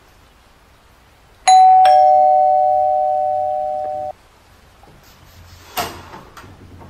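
Electronic doorbell chiming ding-dong: a higher note, then a lower one, both ringing on together and cutting off abruptly after about two and a half seconds. Near the end, a sharp click and light rattling at a door's latch.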